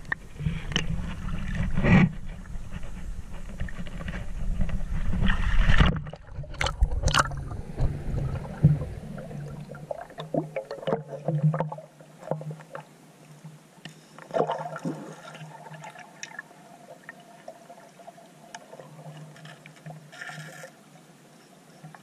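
Muffled water gurgling and sloshing around a submerged camera, with scattered knocks and bumps. There is a heavy low rumble for roughly the first nine seconds, then the sound quietens to faint water noise and occasional clicks.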